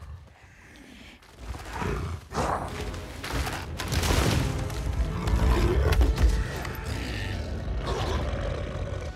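Wargs, the films' giant wolf-like beasts, growling and roaring over film music, starting about a second and a half in and building to a heavy low rumble in the middle.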